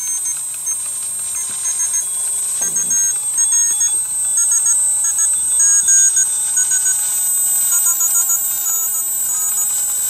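Morse code (CW) signal from the MMX Nomad radio's speaker: short keyed beeps over band hiss, the tone's pitch shifting in steps as the receiver is tuned through the pass band.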